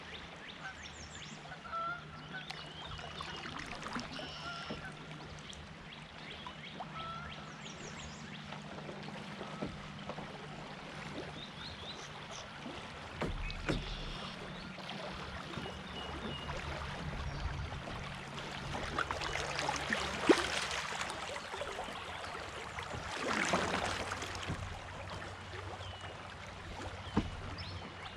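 Kayak on a moving creek: steady flowing water with scattered short bird chirps, and two louder rushes of water splashing past the hull in the second half.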